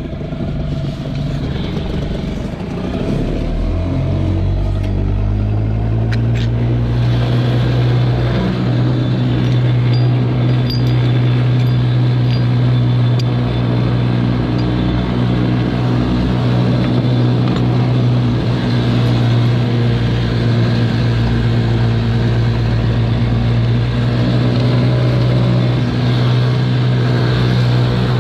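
Small Nissan outboard motor running steadily, pushing an inflatable dinghy; it speeds up about four seconds in, then holds an even pitch. A few sharp clicks sound about six seconds in.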